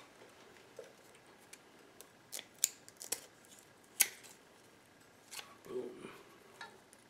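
Scissors cutting black plastic wire loom tubing to length: a handful of separate sharp snips and clicks spread over several seconds, quiet overall.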